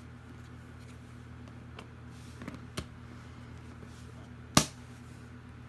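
A few sharp clicks over a steady low electrical hum, the loudest single click about four and a half seconds in.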